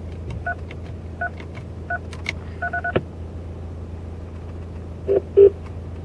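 Parrot CK3100 hands-free car kit beeping as its knob is turned and pressed to enter a phone number: single short beeps about every three-quarters of a second, then a quick run of beeps near three seconds in. Two louder short sounds come just after five seconds in, over a steady low hum.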